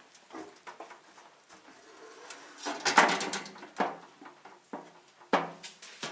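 Metal tool box being handled: scattered knocks and clicks of metal parts, with a dense burst of clattering about halfway through and a few single louder knocks after it.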